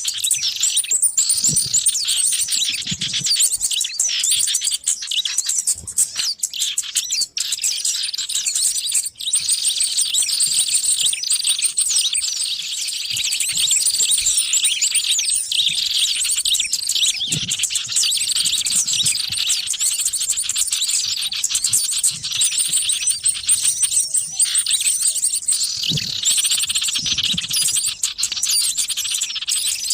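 A dense, noisy chorus of many small birds chirping and twittering at once, without a break. This is a bird-lure recording meant to draw wild small birds in.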